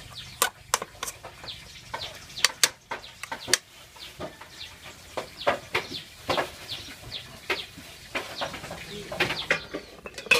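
A metal ladle clinking and scraping against an aluminium cooking pot in irregular sharp knocks as vegetables are stirred. Short, high bird chirps repeat behind it.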